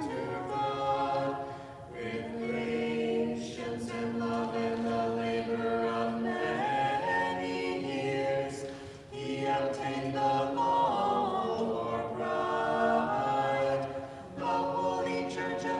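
Orthodox church choir singing a hymn a cappella in several-part harmony, with long held chords. The phrases are broken by short pauses about two, nine and fourteen seconds in.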